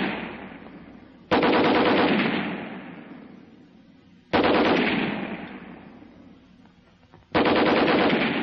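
Browning .30 caliber heavy machine gun (water-cooled M1917A1) firing from a tripod in three short bursts about three seconds apart. Each burst trails off in a long echo.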